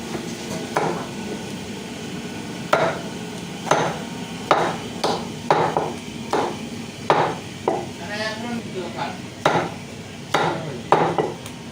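Chicken being chopped with a heavy blade: about a dozen sharp, unevenly spaced chopping strikes.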